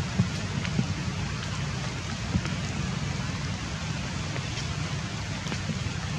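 Light rain falling: a steady hiss with scattered drops ticking.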